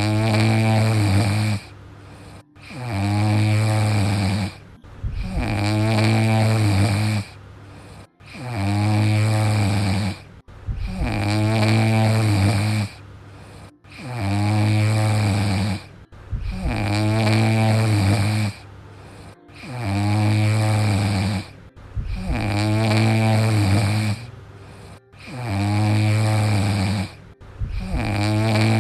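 Small dog snoring in a steady rhythm, each snore lasting about two seconds and recurring roughly every two and a half seconds.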